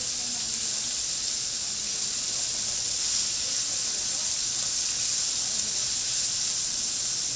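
Beef steak sizzling on a teppanyaki iron griddle: a steady, even hiss.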